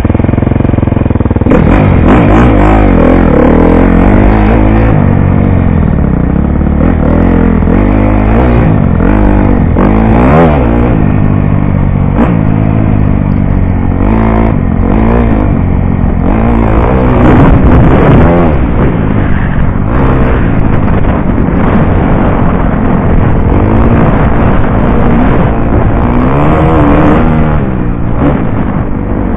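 Dirt bike engine heard close up, revving up and easing off again and again as the rider accelerates, shifts and slows around a motocross track. It is loud throughout, with the pitch rising and falling every second or two.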